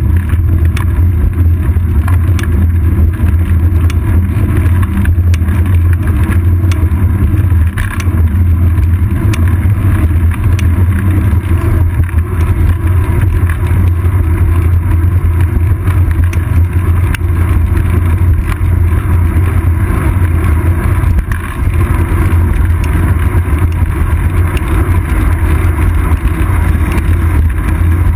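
Steady low wind and road rumble picked up by a GoPro action camera mounted on a bicycle's seat post as the bike rolls along a paved road, with a few small knocks from bumps.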